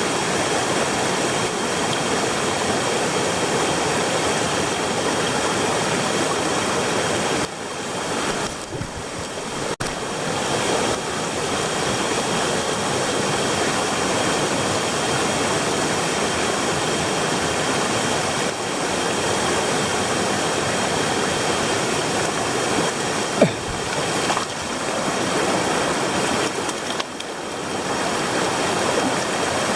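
Mountain stream rushing steadily, dipping briefly in loudness twice, with a single sharp click about three-quarters of the way in.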